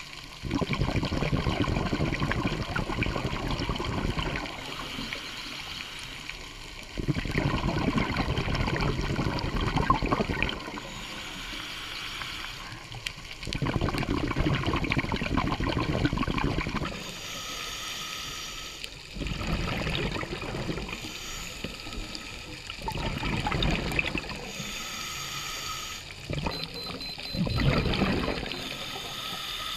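Scuba diver breathing through a regulator underwater: about six loud rushes of exhaled bubbles, each lasting a few seconds, with quieter inhaling hiss through the regulator between them.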